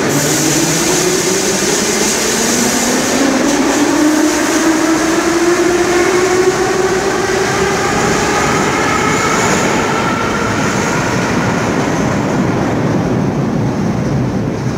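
Metro train pulling out of the station and accelerating into the tunnel: a whine rising steadily in pitch over the rumble of the wheels, growing fainter near the end as it draws away.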